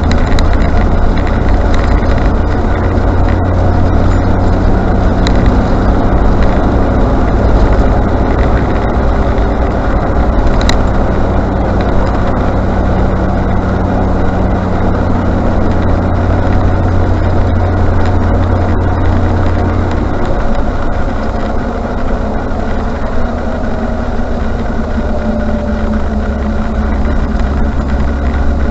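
Range Rover Classic running, with a loud, steady low rumble of engine and road noise that eases about twenty seconds in and builds again near the end; no clear brake squeal stands out.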